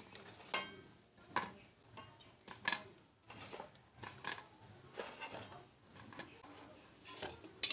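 Light, scattered clinks and taps on a stainless steel plate as fried luchis are set down on it by hand, with a soft rustle of the puffed bread.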